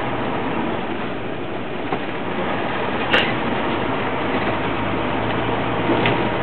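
A bus engine running steadily with road noise, heard from inside the cab while driving. A single sharp click comes about three seconds in.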